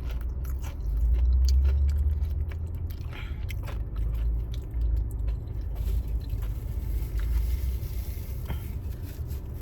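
A person biting and chewing food with soft crunches and mouth clicks, over a steady low rumble.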